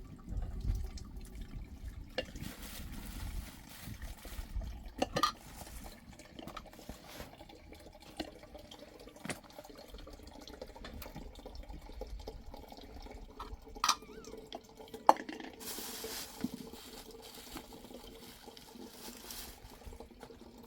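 Water splashing and trickling, with a few sharp clinks and knocks of pots and utensils scattered through.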